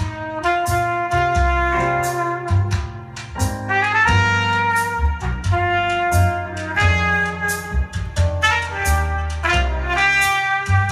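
Instrumental jazz, with a horn carrying the melody over steady bass notes and cymbals, played through a DIY speaker: a re-coned vintage JBL D130 woofer with a Celestion super tweeter, driven by a Heathkit Williamson-type KT66 tube amplifier.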